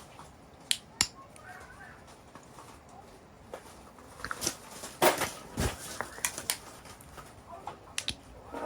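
Scattered light knocks and clicks of objects being handled, with a louder clatter about five seconds in.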